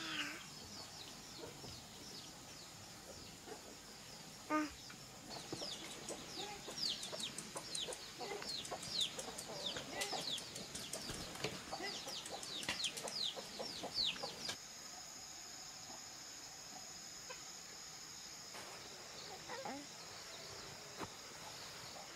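Farmyard chickens clucking and calling, with a dense flurry of short, high, quickly falling chirps over a steady high insect drone. The chirping stops abruptly about two-thirds of the way through, leaving the drone and a few faint calls.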